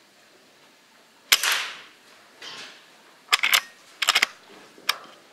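A single air rifle shot, a sharp crack with a short fading tail, about a second in, followed by several clusters of quick sharp clicks.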